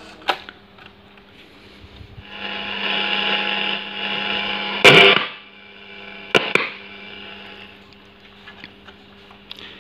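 Cassette transport of a National Panasonic RQ565D radio-cassette recorder running with a steady motor hum. About two seconds in it rises to a louder whir for a couple of seconds as the mechanism spins in rewind, ending with a loud key clunk at about five seconds, then two lighter clicks.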